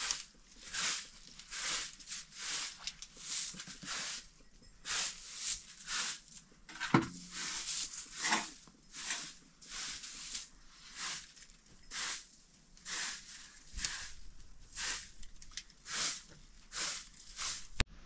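A steady run of short, scratchy strokes, roughly two a second, with a single sharp knock about seven seconds in.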